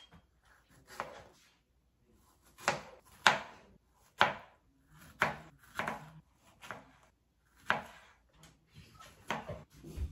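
Chef's knife chopping fresh strawberries on a cutting board: a dozen or so sharp knocks of the blade against the board at an uneven pace, roughly one a second.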